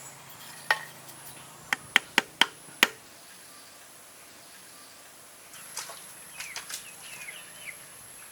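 A series of sharp knocks: one, then five in quick succession about two seconds in, followed by softer rustling and scraping with a few faint high squeaks.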